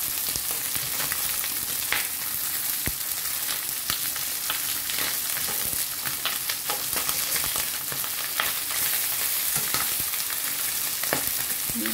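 Beltfish pieces shallow-frying in hot oil in a pan: a steady sizzle with frequent small pops, and metal tongs clicking against the pan as the pieces are turned.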